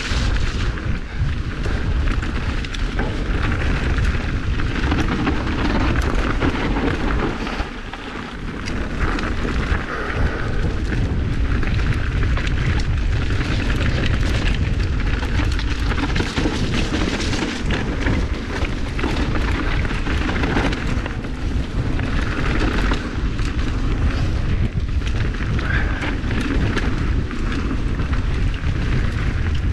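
Mountain bike riding down a wet dirt singletrack. Steady wind rumble on the microphone, with tyre noise and the bike's knocks and rattles over bumps. The noise eases briefly about eight seconds in.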